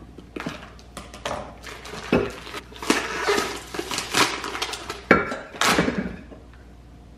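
Plastic packaging around a raw whole chicken crinkling and rustling as it is snipped with kitchen scissors and pulled off, with knocks as the bird is set into a slow cooker's crock. The handling noise dies down about six seconds in.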